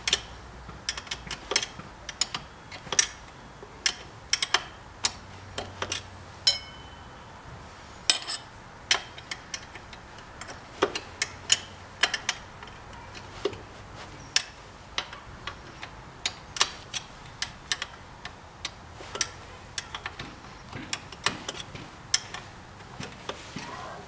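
Irregular sharp metallic clicks and clinks, about one every half second to a second, of a wrench turning a bolt on a motorcycle's rear brake caliper bracket.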